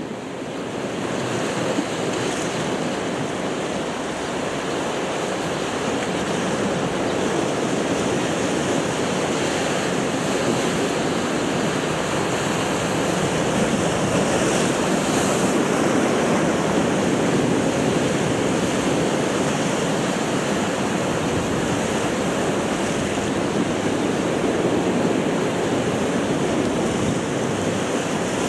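Sea surf washing steadily against a rocky shoreline, with some wind buffeting the microphone.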